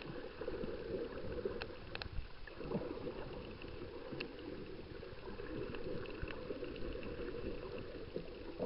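Muffled underwater sound of moving water picked up by a submerged camera over a shallow reef: a steady dull rush with a few scattered sharp clicks.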